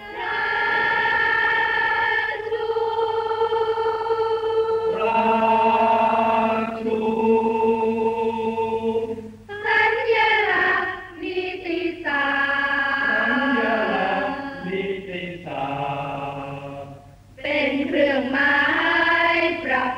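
A choir singing a slow song in long held notes, with short breaks between phrases about nine and seventeen seconds in.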